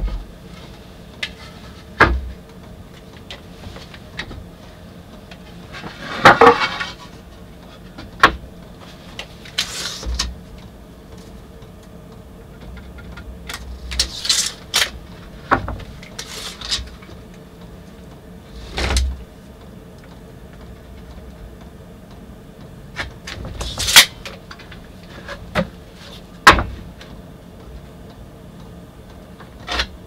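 Pallet-wood boards being handled and laid on a wooden counter: a dozen or so sharp knocks and clatters of wood on wood, with a few brief scrapes of boards sliding, over a faint steady hum.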